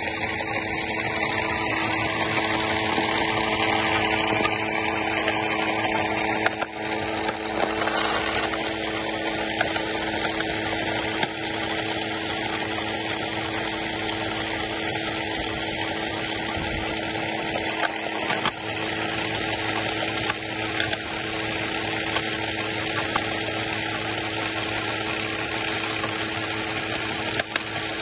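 Steady whir of small electric motors from a radio-controlled CAT 950M scale-model wheel loader and a belt-driven model conveyor running, with a few short clicks and clatter from gravel tipping out of the loader's bucket.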